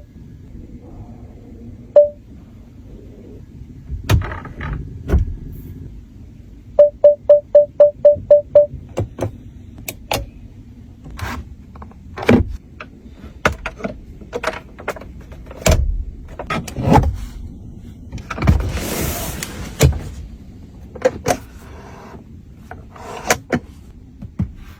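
Clicks and knocks of a car's doors and controls being worked, with a single short beep, then a quick run of eight identical beeps, and a rushing noise lasting about two seconds later on.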